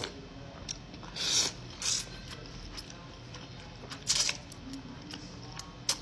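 A person slurping pho: rice noodles and broth sucked up off chopsticks and spoon, four slurps, the loudest about a second in and about four seconds in, a short one near the end.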